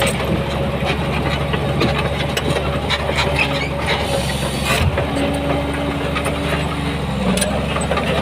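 Heavy diesel engine of earth-moving equipment running steadily, with irregular metallic clicks and clanks over it.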